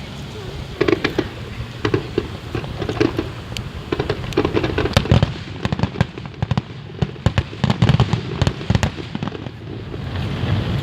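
Fireworks going off in a rapid, irregular volley of bangs and cracks, starting about a second in and stopping shortly before the end.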